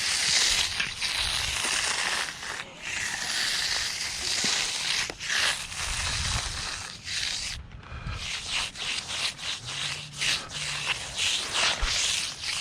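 Concrete float rubbing and scraping across a freshly poured wet concrete slab in repeated strokes. The strokes come quicker in the second half.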